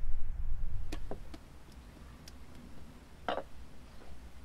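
Light clicks and knocks from tomatoes being handled in an enamel bowl: a few sharp ticks, then one louder knock about three seconds in. A low rumble fades out within the first second.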